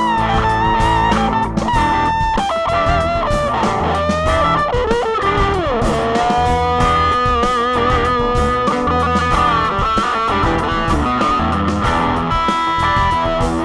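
Electric guitar lead played through a Marshall Origin 5, a 5-watt all-tube amp with an 8-inch speaker: sustained notes with string bends and vibrato over a backing of bass and drums.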